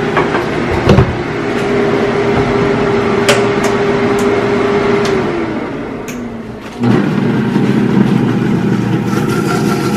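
Countertop blender motor running: it starts with a click about a second in and runs with a steady whine, winds down about five seconds in, then starts again suddenly with a lower whine near seven seconds.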